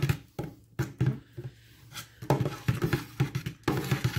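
Stainless steel spoon stirring thick soap batter at trace in a stainless steel pot, with irregular knocks and scrapes of the spoon against the pot, pausing briefly about a second in.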